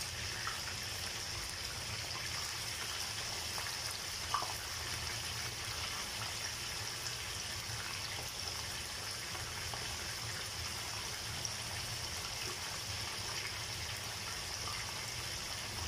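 Tuna slices sizzling in hot oil in a frying pan, a steady hiss with a small pop about four seconds in.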